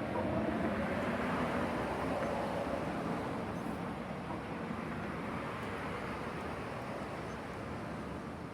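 City traffic noise: a vehicle passes with a low rumble, loudest in the first couple of seconds and then slowly fading back into the steady hum of the street.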